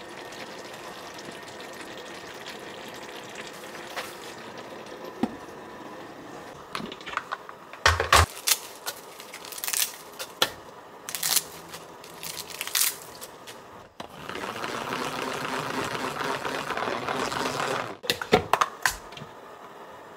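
Plastic salad spinner whirring steadily for about four seconds as it spins washed lettuce dry, then stopping abruptly, followed by sharp clacks of the plastic basket being handled. Earlier, a cluster of crisp crunches, taps and clacks as lettuce leaves are torn and dropped into the basket.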